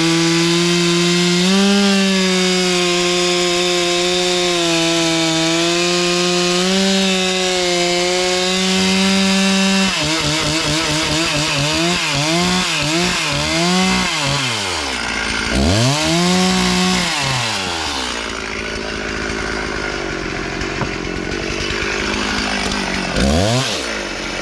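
Stihl 036 Pro chainsaw with a 25-inch bar cutting wood at full throttle, holding a steady engine speed under load. About ten seconds in it comes out of the cut and revs up and down several times, then settles lower, with one more brief rev near the end.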